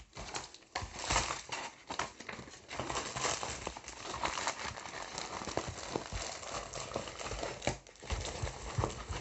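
Crinkling and rustling of a large diamond-painting canvas as it is flexed and rolled up by hand, with small crackles and taps throughout.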